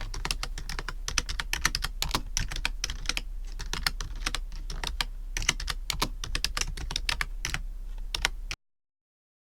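Typing on a computer keyboard: a fast, irregular run of key clicks over a steady low hum. The sound stops abruptly near the end.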